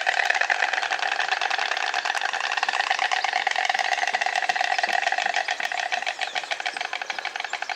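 White stork bill-clattering: the mandibles snapping together in a fast, even rattle of wooden-sounding clicks that grows a little fainter after about five seconds.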